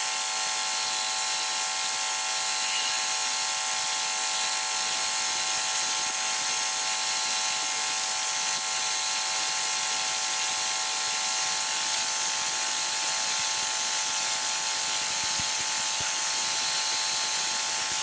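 Steady electrical buzz of a sound system, a constant hum of many pitches with a hiss over it, unchanging in level.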